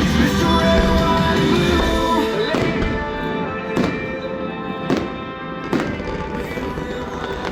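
Fireworks bursting: four sharp bangs roughly a second apart in the second half, over music.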